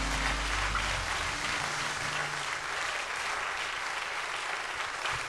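Audience applauding, as the last held notes of the song's accompaniment die away in the first second or so.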